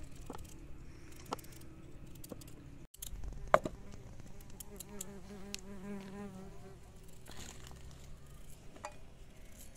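A fly buzzing close by, its hum wavering in pitch, over small clicks and scrapes of a knife peeling raw potatoes. One sharp knock stands out about three and a half seconds in.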